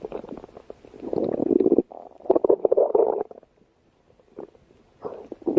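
Stomach growling: long gurgling rumbles in waves. A loud one ends near two seconds in, another follows after a short break, then a faint gurgle, and a new rumble builds near the end.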